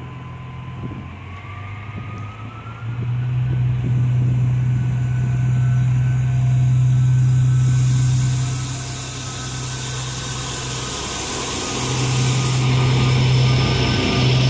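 Diesel engine of a PESA Link SA136 diesel multiple unit running as the railcar pulls away from the platform. Its drone grows louder about three seconds in and then holds steady. A faint whine rises in pitch in the first seconds, and a loud hiss joins past the middle for about five seconds.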